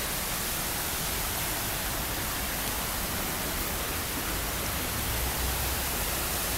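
Steady rushing hiss of water falling from a small rock cascade, with a low rumble swelling about five seconds in.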